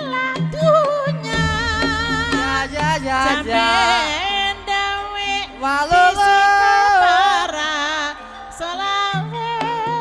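Banyumasan gamelan music for an ebeg horse dance, with a wavering sung melody over a steady drum pulse. A low drone sounds through the middle and drops out about a second before the end.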